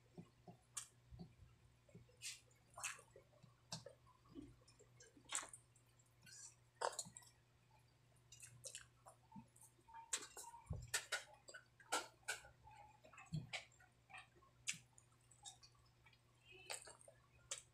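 Close-up mouth sounds of a person eating stewed chicken with her hands: quiet, irregular wet clicks and smacks of chewing and lips, a fraction of a second to about a second apart.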